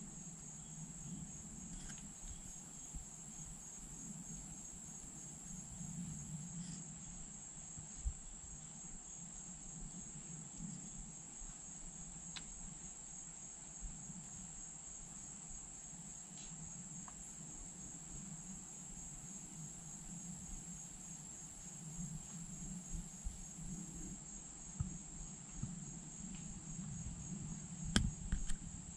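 Insects trilling in a steady, high-pitched chorus that never breaks. A few faint clicks and rustles come through, with a slightly louder knock near the end.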